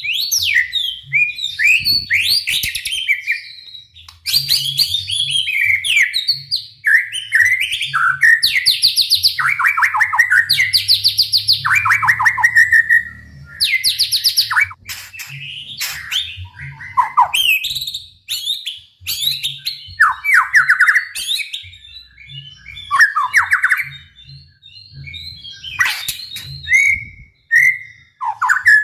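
White-rumped shama (murai batu) singing in full song: a loud, varied run of whistles, sweeping notes and rapid-fire trills of closely repeated notes, with short breaks between phrases.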